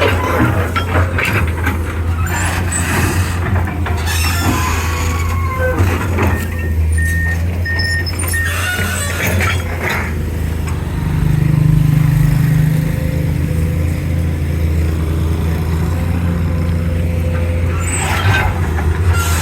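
Excavator's diesel engine running steadily, with scattered clanks and knocks from the machine at work.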